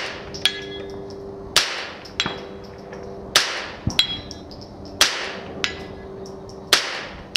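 Five .22 rimfire rifle shots, about one every 1.7 seconds, each followed about half a second later by a fainter metallic ring as the bullet strikes a steel silhouette target downrange.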